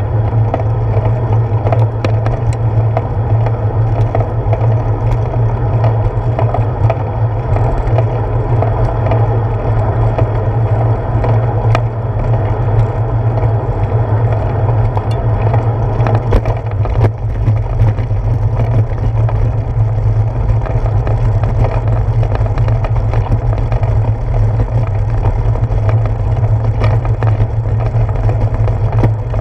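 Bicycle rolling along a paved road, heard from a handlebar-mounted camera: a steady low wind rumble and tyre noise, with scattered clicks and rattles over bumps.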